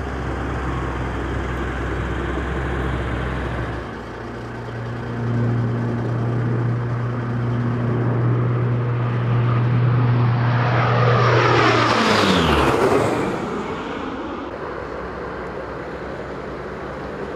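C-130H Hercules' four turboprop engines and propellers running with a steady low hum as the aircraft approaches. It grows louder, then the pitch sweeps sharply downward as it passes overhead about twelve seconds in, and it fades after.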